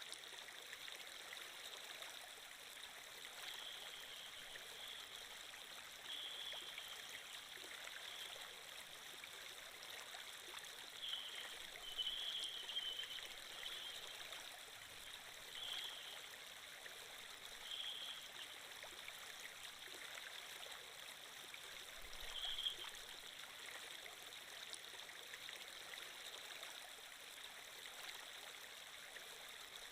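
Water flow sound effect: a faint, steady stream running and trickling, with brief louder bubbling notes every few seconds.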